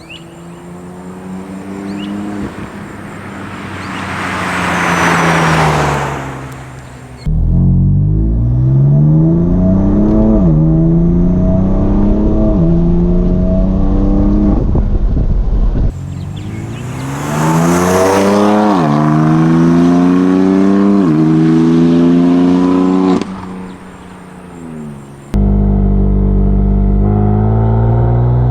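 BMW F82 M4's twin-turbo straight-six with catless downpipes and a tune, heard in several cut-together clips: the car passes by, swelling up and fading, then accelerates hard with the revs climbing and dropping at each upshift, passes again while upshifting, and near the end cruises at a steadier, slowly rising engine note.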